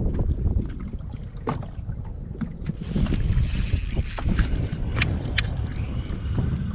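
Gusty wind buffeting the microphone as a steady low rumble, with scattered sharp taps and knocks throughout and a rush of hiss about halfway through.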